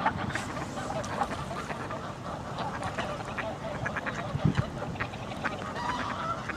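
A flock of ducks quacking, many short calls overlapping.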